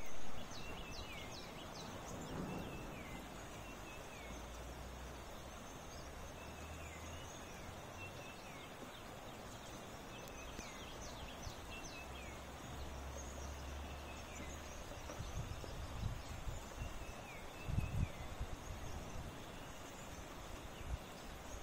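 Light rain falling with a steady hiss while birds call in short, repeated falling chirps. A few low rumbles come in near the end.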